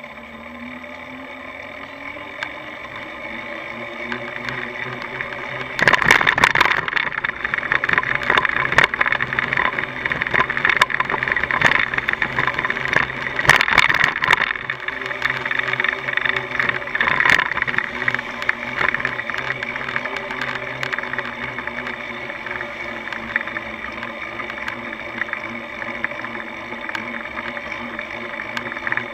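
Road traffic heard from a moving bicycle: a vehicle engine rising in pitch as it speeds up over the first few seconds. About six seconds in, a louder rushing noise full of clicks and rattles begins, easing off again after about eighteen seconds.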